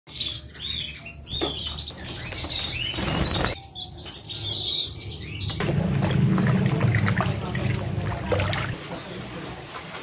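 Canaries chirping in short, quick gliding calls, then from about halfway water sloshing and splashing as aloe vera leaves are rinsed in a basket in a stream.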